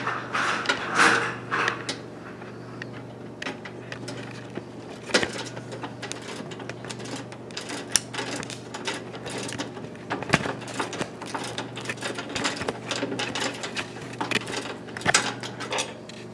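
Irregular metallic clicks, rattles and knocks as a key is worked in the lock of a bulk candy vending machine and its loose coin drawer is pulled out, with quarters rattling inside. A steady low hum runs underneath.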